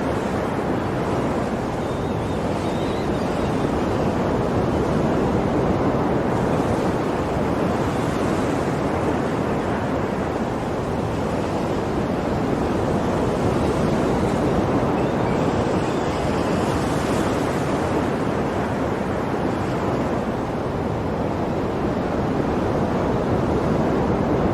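Ocean waves breaking and washing on a shore, a continuous surf with slow swells in loudness.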